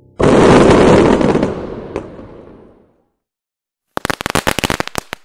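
Fireworks: a loud burst about a quarter second in that fades away over about two and a half seconds, then after a short gap a rapid run of sharp crackling cracks near the end.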